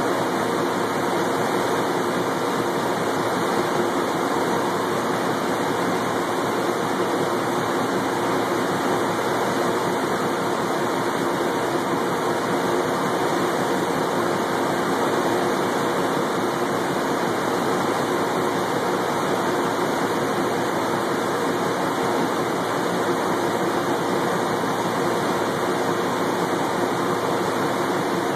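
Laser engraving machine running as it burns a logo into a wooden barrel head: a steady rushing air noise from its exhaust and air-assist blowers, with no breaks.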